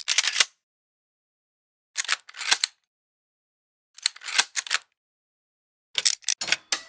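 Short mechanical gear clicking sound effects: four quick runs of sharp clicks, about two seconds apart, with silence between them.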